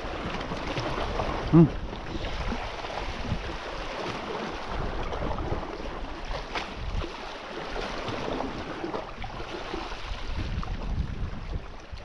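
Sea waves washing, with wind buffeting the microphone. A short, loud pitched blip sounds about one and a half seconds in.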